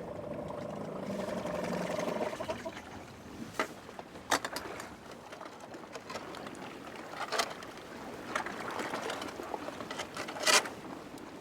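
A boat's motor hums low and steady, then dies away about two seconds in. Water and wind noise follow, with a few isolated sharp knocks.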